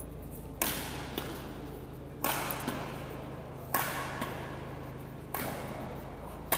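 Badminton racket strikes on a shuttlecock during a doubles rally: five sharp hits about a second and a half apart, each with a short echo.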